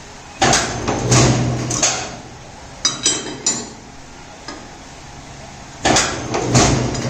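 Electric rod-bending machine running in two short bursts of about two seconds each, a steady motor hum under the noise of the turntable, as it bends a steel guy rod around its centre pin. Between the bursts come a few sharp, ringing metal clinks of the rod against the pins and table.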